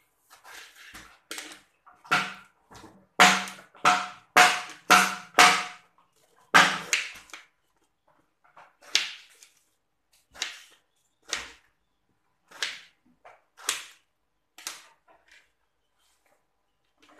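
Kitchen knife cutting through peeled angled luffa onto a plastic cutting board: a run of sharp knocks about two a second in the first half, then single cuts about once a second.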